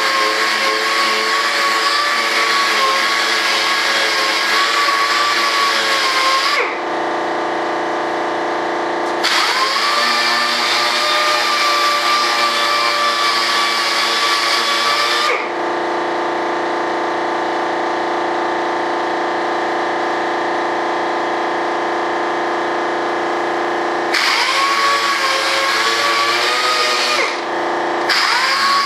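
Orbital sander running on a fiberglassed model rudder, a loud whine with a slightly wavering pitch. It runs in four stretches of about three to six seconds, dropping each time to a quieter steady hum, the longest break of about nine seconds coming mid-way.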